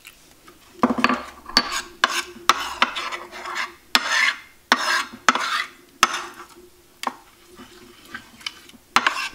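Metal spoon stirring a runny flour batter in a ceramic plate, scraping and clinking against the plate in quick strokes. The stirring starts about a second in, thins out after about six seconds, and ends with a sharp clink near the end.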